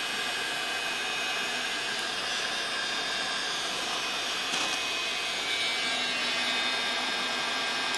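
A 1,500-watt Mastercraft heat gun running steadily, blowing hot air onto a steak: a rush of air with a steady high whine from its fan motor.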